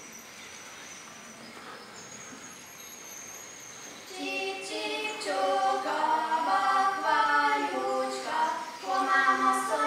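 A group of voices singing in harmony without instruments, coming in about four seconds in after a few seconds of quiet room hiss.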